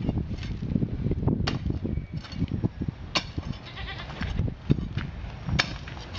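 Hand tools knocking and scraping on broken concrete rubble: irregular sharp knocks over a low rumbling scrape, the loudest a little before five seconds in and again near the end.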